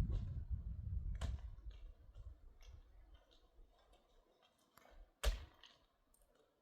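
Scattered light clicks and knocks over a low rumble that dies away in the first two seconds, with a sharp knock about a second in and the loudest knock about five seconds in.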